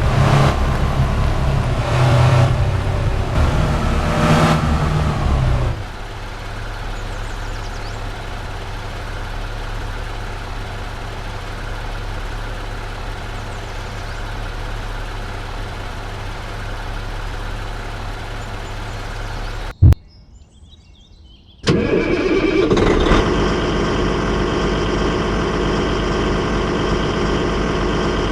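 Heavy vehicle engines running. For the first six seconds the engine pitch rises and falls, then it settles into a steady low running sound. After a sharp click there are two quiet seconds, then a different engine starts up with a steadier, higher hum.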